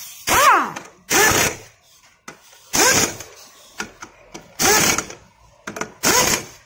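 Pneumatic impact wrench on a scooter's rear wheel nuts, fired in five short bursts of about half a second each. Each burst carries an air hiss and a motor pitch that drops as it hammers, typical of wheel nuts being run down tight.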